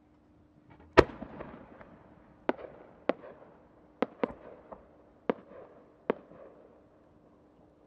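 A 12-inch (No. 10) aerial firework shell goes up with a loud report about a second in. A string of sharp pops follows over the next five seconds as the small bursts of its rising effects go off during the climb, each trailing an echoing rumble.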